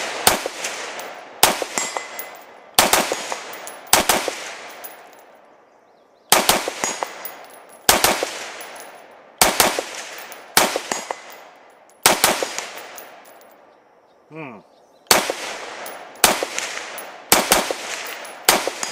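AR-15-style semi-automatic rifle firing single shots at a steady pace, about one every second and a half, each shot followed by a fading echo. There are about fourteen shots, with two short pauses, one about four seconds in and one near 14 seconds.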